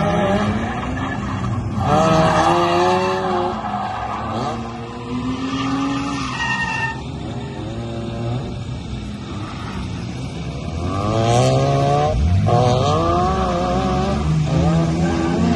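Mazda FC RX-7's two-rotor rotary engine revving up and down while drifting, with tyres squealing and skidding, on an open differential. It is loudest about two seconds in and again from about eleven seconds.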